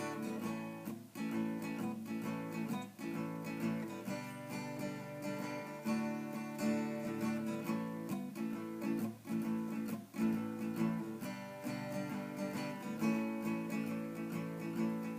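Acoustic guitar strummed in chords, with changes every second or two, as an instrumental solo break between sung verses of a song.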